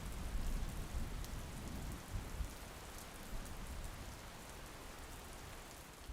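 Steady rain with scattered individual drop clicks, slowly fading and then cut off at the end.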